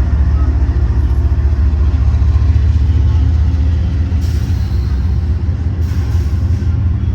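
Diesel freight locomotives running with a deep, steady rumble, with two short bursts of hiss about four and six seconds in.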